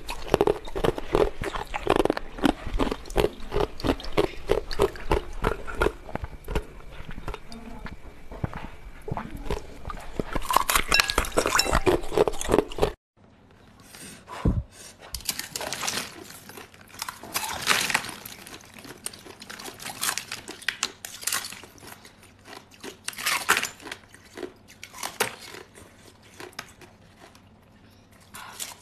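Close-miked biting and chewing of ice, with many rapid crunches in quick succession. About halfway through the sound drops abruptly, and the rest holds quieter, more widely spaced crunches and chewing.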